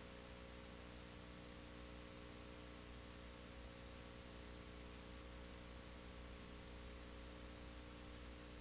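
Near silence: a steady low electrical hum with faint hiss, unchanging throughout, and no other sound.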